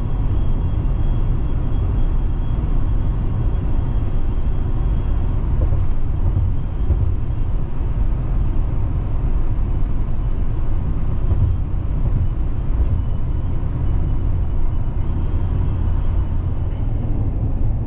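Truck driving at highway speed: a steady engine and tyre rumble on the road, unchanging throughout.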